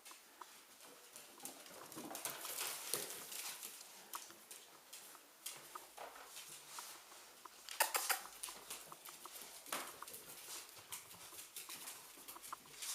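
Staffordshire bull terrier dogs moving about and scuffling, their claws clicking and scrabbling on a hard floor in many quick, uneven taps. There is a louder scuffle about eight seconds in.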